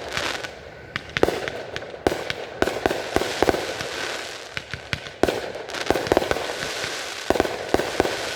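Aerial fireworks going off: a rapid, irregular series of sharp bangs about every half second, with crackling hiss between them.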